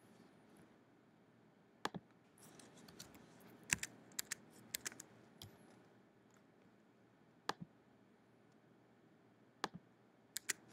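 Faint, scattered clicks of a computer mouse and keyboard, about a dozen spread out with a few in quick pairs, over quiet room tone.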